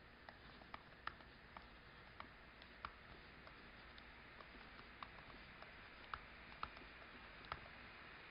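Faint, irregular clicks and taps of a stylus writing on a tablet screen, one every half second to a second, over quiet room hiss.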